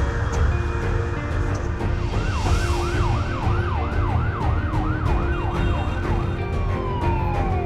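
Emergency vehicle siren in a fast yelp, about three rises and falls a second, starting about two seconds in and switching to a slower wail near the end, over a steady low rumble.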